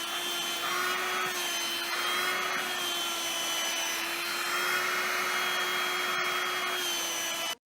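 A small electric motor running with a steady whine, with a rushing hiss that swells and fades a few times; it cuts off abruptly near the end.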